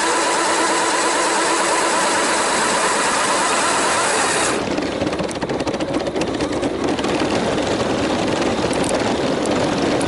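Electric motors and gearing of a LEGO Technic RC tracked amphibious vehicle, heard from a camera mounted on it, running with a steady wavering whine. About four and a half seconds in the sound changes abruptly to a duller, rougher noise with small crackles.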